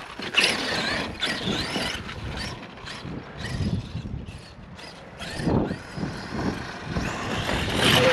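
Arrma Outkast 8S electric RC truck running on soft dirt: its brushless motor whines up and down with the throttle, mixed with tyres churning dirt and scattered knocks from the chassis and suspension.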